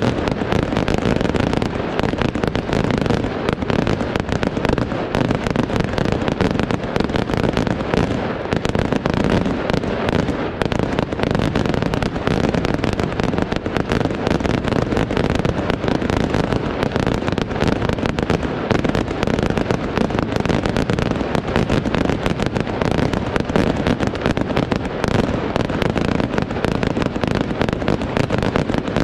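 Aerial fireworks shells bursting in a rapid, unbroken barrage of bangs, many overlapping at once.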